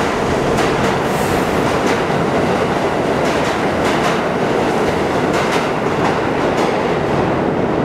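R32 subway cars rolling away through the station, a steady rumble with wheels clacking irregularly over rail joints.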